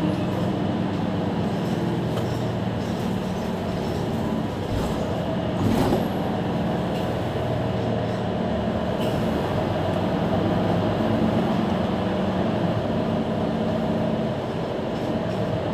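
Mercedes-Benz Citaro C2 Hybrid city bus idling at a stop: a steady engine hum with several held tones, and one short knock about six seconds in.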